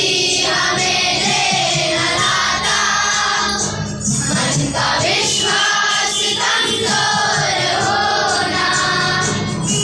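A group of children singing a prayer together in unison, steadily throughout.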